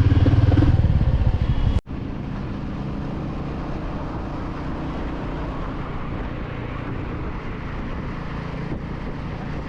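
Royal Enfield Meteor 350's single-cylinder engine running steadily while riding. About two seconds in the sound drops abruptly to a quieter, duller engine and road noise that carries on steadily.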